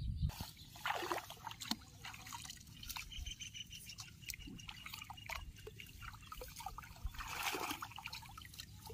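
Shallow flooded paddy water being stirred by hands: small irregular splashes with water trickling and dripping, and a somewhat louder splash about seven seconds in.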